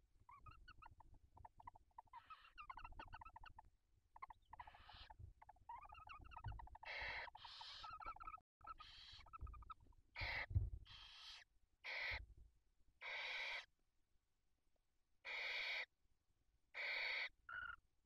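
Barn owls calling at close range in a nest box. Rapid twittering, chirping calls come first. Then a series of harsh hissing screeches, each about half a second long and a second or more apart, as a rodent is passed to the sitting owl.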